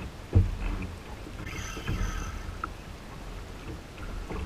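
Kayak on the water during a fish fight: low rumble of water moving against the plastic hull, with a sharp knock about half a second in and a softer one about two seconds in.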